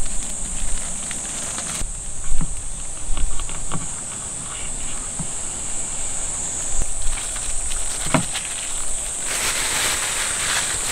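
Steady high-pitched insect chorus, with soft handling noises from a plastic-gloved hand working a raw eel fillet on a wooden cutting board: a few light taps and a plastic crinkle, the crinkle brightening near the end.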